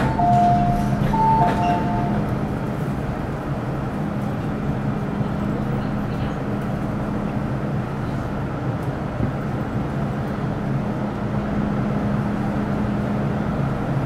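Inside an MTR Metro Cammell M-Train car (GEC GTO chopper EMU), with the train's steady low hum throughout. A two-tone chime sounds twice in the first two seconds.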